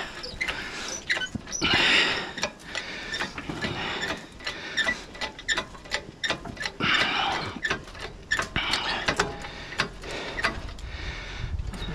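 A two-ton engine hoist carrying a hanging engine and transmission is pushed and swung. Its steel frame and lifting chain give off repeated clicks and clanks, with a few longer scraping squeaks about two, seven and nine seconds in.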